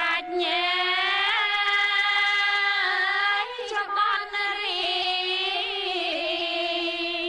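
A Khmer mourning song: a singer draws out long, wavering notes on sung vowels over a steady held accompaniment line, with a short break in the voice a little past halfway.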